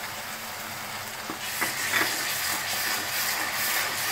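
Crushed onion paste sizzling in hot oil in a metal kadhai, with a wooden spoon stirring and scraping the pan. The sizzle grows louder about a second and a half in, as the stirring spreads the paste through the hot oil.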